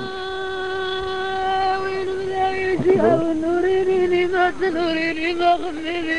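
A single male voice chanting in a Tamazight inshad (chant), from a recording some forty years old. He holds one long steady note, then about three seconds in the pitch dips and he carries on with a wavering, ornamented line.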